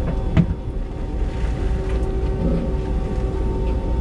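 A boat's engine machinery running with a steady low drone, and a single short knock about half a second in.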